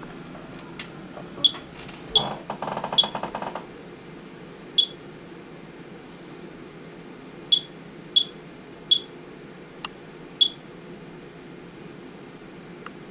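Geiger counter's chirper giving short high beeps at irregular intervals, about eight of them, each one a detected count from a rain-wipe sample that the tester takes for radioactive contamination. A brief rattle about two seconds in, over a steady low hum.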